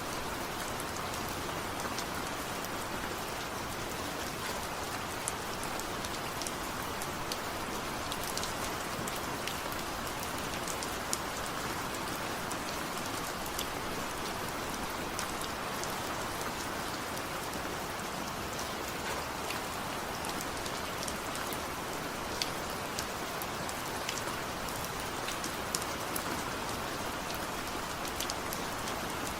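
Steady rain falling, with an even hiss and scattered individual drops ticking sharply on a surface.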